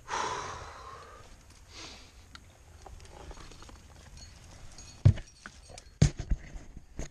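Climbing noises close to a head-mounted camera: a short rushing noise that fades over about a second, then sharp knocks about five seconds in, a quick run of them a second later, and one more near the end.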